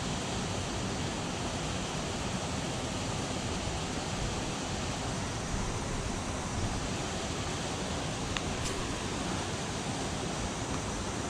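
Steady, even rushing of flowing floodwater, a constant hiss with no rhythm; a faint brief high tick sounds about eight and a half seconds in.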